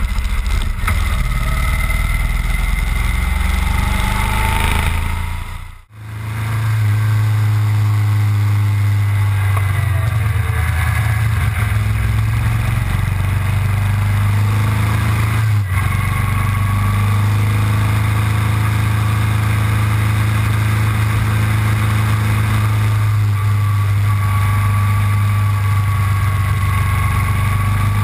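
Motorcycle engine running at a steady speed on the move, a low even drone with little change in pitch. The sound briefly drops out twice, about a third of the way in and again just past the middle.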